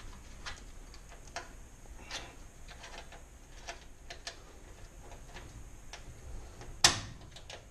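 Small metal clicks and taps of hands and a steel range leg working at the range's bottom frame, irregular and light, with one sharp metallic click about seven seconds in.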